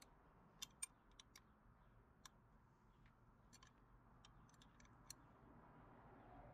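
A dozen or so faint, irregular clicks of an Allen key working a screw in the hand guard's handlebar mount.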